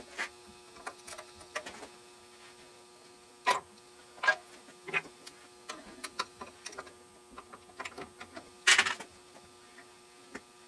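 Small metal clicks and clinks of hand tools on the attachment's metal housing as the flange screws are backed out with an Allen key and a flat bar pries the flange loose, with a louder scraping clatter about nine seconds in. A steady low hum runs underneath.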